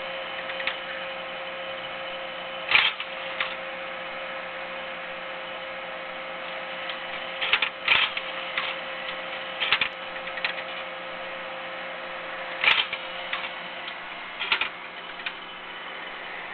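Iomega ZIP CD650 external CD drive running with a steady hum and making irregular mechanical clicks and clunks, about a dozen spread unevenly with the loudest near the start and the middle. The drive is acting up on its own, with nobody using it: a malfunction.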